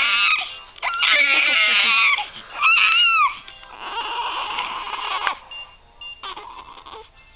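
Two-day-old newborn baby crying: several loud, high-pitched cries whose pitch rises and falls, then from about halfway through weaker, hoarser cries that fade to short faint ones.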